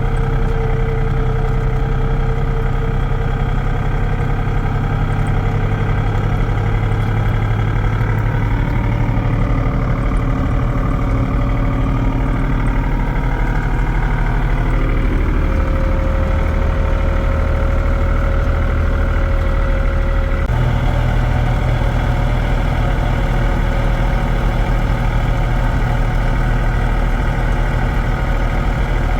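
A heavy engine running steadily, its note shifting around halfway through and again about two-thirds of the way in.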